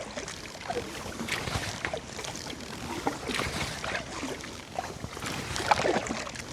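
Kayak paddle strokes on calm water: the blades dip and splash irregularly, and water drips and trickles off them.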